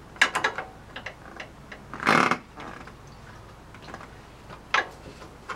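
Sharp metal clicks and clatter of oil filter pliers being clamped on and worked against a stuck oil filter. A quick run of clicks comes just after the start, a short rasping burst about two seconds in, and single clicks near the end. The filter is seized and won't yet turn.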